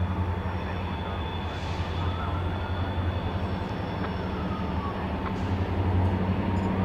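Steady low rumble and hum of a train approaching from far down the line, growing slightly louder near the end.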